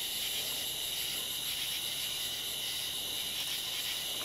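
Steady night chorus of crickets trilling, a constant high-pitched drone over a faint hiss.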